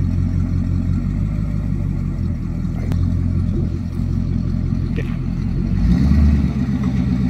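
V8 engine of a 1983 S10 pickup idling with an uneven, choppy exhaust beat; about six seconds in it gets louder and deeper as the truck creeps forward.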